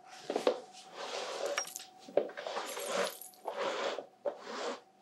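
Clinking and scraping of a spill being cleaned up off a kitchen counter, a run of short clattering bursts over a faint steady hum.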